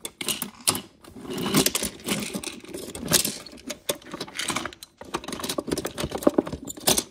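Small toy pieces clattering and rattling in quick, irregular clicks and knocks, as they are handled and pushed into a container.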